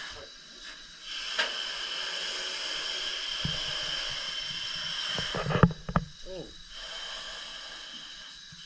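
Steady hiss of gas flowing inside a hyperbaric diving chamber, with a sharp click early on and a short cluster of loud knocks about five and a half seconds in.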